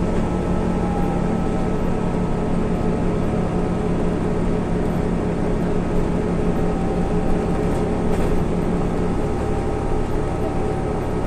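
Scania OmniCity city bus under way, heard from inside the passenger cabin: steady engine and drivetrain hum with road noise, carrying several held tones. The lowest tone drops out about nine seconds in.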